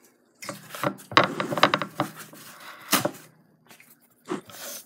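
Close handling noise: rustling, scraping and clicking of things being moved right by the microphone, with a sharp knock about three seconds in and a short rustle near the end.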